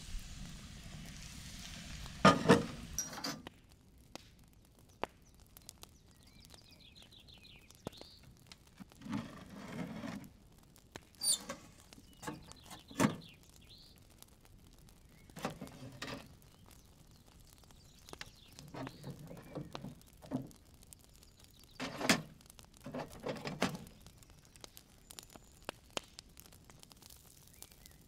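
Hissing of liquid poured from a pan over a tray of pastry, ending in a few loud metal clanks about two seconds in. After that come scattered knocks and clanks of metal cookware and an iron stove door, with a bird chirping faintly between them.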